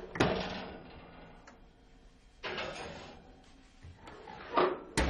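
Kitchen handling sounds: three knocks or scrapes of cookware and utensils, each trailing off over about a second.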